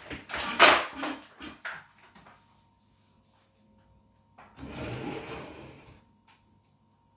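Kitchen knife chopping onion on a cutting board: a quick run of sharp knocks in the first two seconds, then a rubbing, scraping noise about four and a half seconds in.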